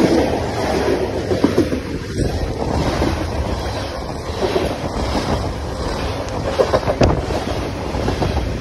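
Loaded CSX coal train's open-top coal cars rolling past close by: a steady rumble and rattle of steel wheels on rail, with a few sharp clicks as wheels cross rail joints.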